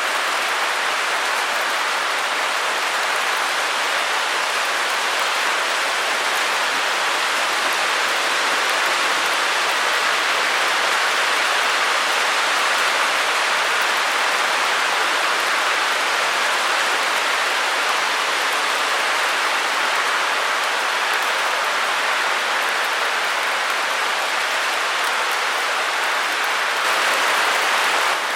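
Steady white-noise hiss, an even rush with no pitch or rhythm and almost no deep bass.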